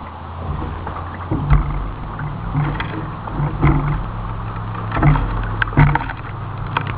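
1995 Ford F-150 pickup's engine running and revving in bursts as the stuck truck tries to drive out of muddy creek water, picking up about half a second in. Several sharp knocks and splashes come over the engine.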